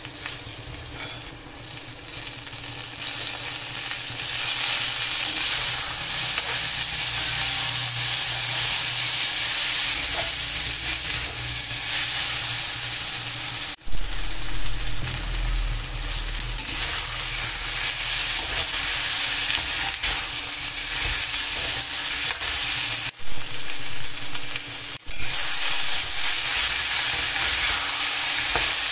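Vegetables sizzling in hot oil in a black kadai while a slotted metal spatula stirs and scrapes the pan. About halfway through, potato chunks go into the oil and the sizzle grows louder.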